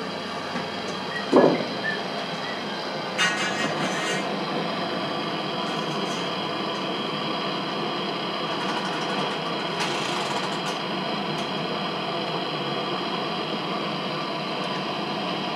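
Hand-held gas soldering torch burning with a steady flame hiss. A short sharp sound comes about a second and a half in, and a brief metallic clatter follows a little after three seconds.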